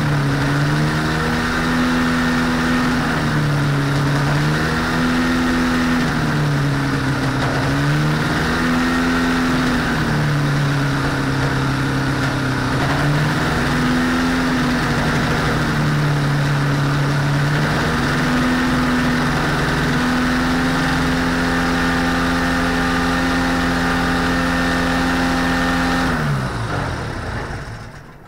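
Rotax 503 two-cylinder two-stroke engine idling with the propeller turning, its speed sagging and recovering about every three to four seconds while the low idle is being set. The speed then holds steady before the engine is shut off and winds down near the end.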